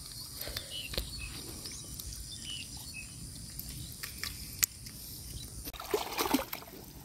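Faint rustling of a wet mesh fish trap being shaken out over a bucket of live shrimp and small fish, with a few sharp little ticks. Near the end, water trickles and splashes.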